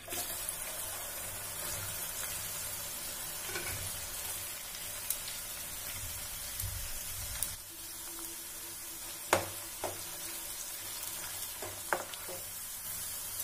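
Cut okra sizzling steadily as it fries in hot cooking oil in a kadhai, the hiss starting as the pieces hit the oil. A metal spatula stirs it, with a few sharp knocks against the pan in the second half.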